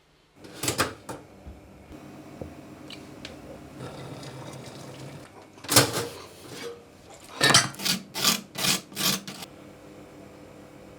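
Sharp knocks and clatters over a steady hum: a few near the start, one loud one in the middle, then a quick run of five or six close together.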